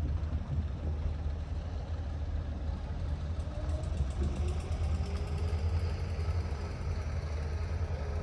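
A large engine idling with a steady low rumble.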